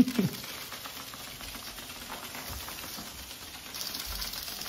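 Several Hexbug vibration-driven toy robots skittering on a hardwood floor: a fast, steady rattling patter of many small legs clicking, getting a little brighter and higher near the end.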